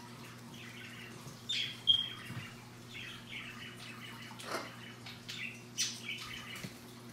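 Scarlet macaw making a scatter of short chirps and squeaky calls, with one call sliding steeply down in pitch about halfway through. A steady low hum runs underneath.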